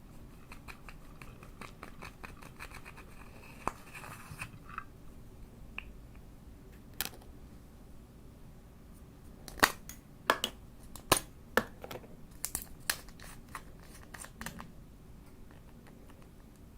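Slime being squeezed and poked by hand, giving a run of small crackling clicks and then a cluster of louder, sharper pops about ten to thirteen seconds in.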